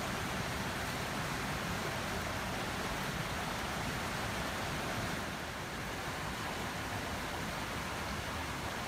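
Steady rushing of flowing river water, an even noise without breaks.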